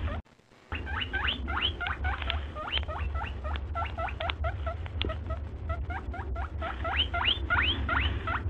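Rapid high chirps from small birds, each rising sharply in pitch, several a second, over a steady low hum; the sound drops out briefly just after the start.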